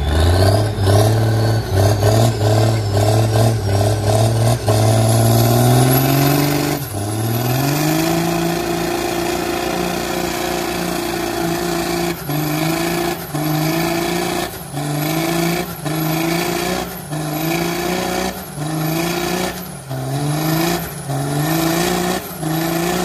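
Big lifted truck's engine at high revs with its tires spinning in a smoky burnout. About seven seconds in, the revs climb higher and hold. From about halfway they rise and drop over and over, about once a second.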